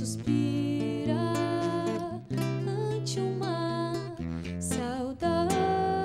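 Live gaúcho folk song: an acoustic guitar with a violin, accompanying a woman's singing voice.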